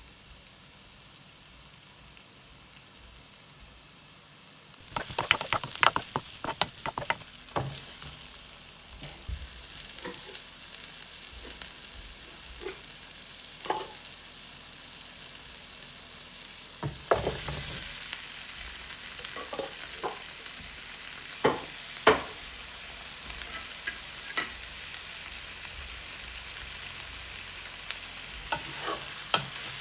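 Food sizzling as it fries in a pot, a steady hiss, with scattered clicks and knocks of a utensil stirring against the pot.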